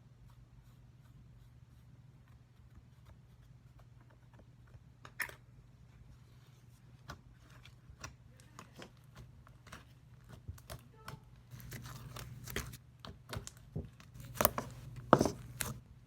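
Glitter slime being handled, a scatter of small sharp clicks and pops that grow busier and louder in the last few seconds, over a steady low hum.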